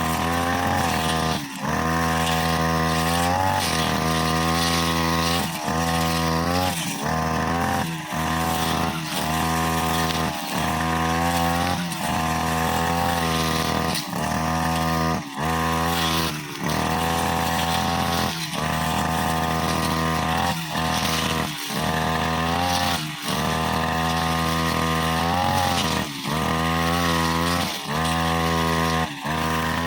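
OGAWA brushcutter engine running at high speed with a metal cutting blade, its pitch and level dipping briefly every second or two as it cuts through long, overgrown grass.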